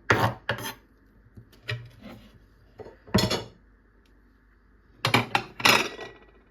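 Kitchen utensils and dishes clattering in food preparation: separate knocks and clinks, a quick few at the start, a loud one about three seconds in, and a cluster near the end.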